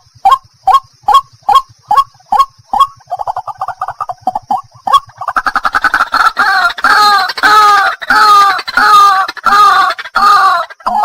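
White-breasted waterhen calling. A steady series of short notes, about two and a half a second, quickens into a rapid run. About five seconds in, loud, harsh, repeated croaking calls take over, roughly two a second.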